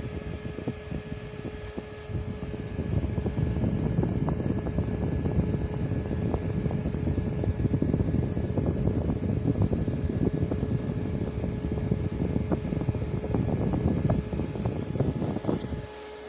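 A small fan running, its airflow making a rough, fluctuating rumble over a faint steady hum; the rumble stops suddenly near the end, leaving only the hum.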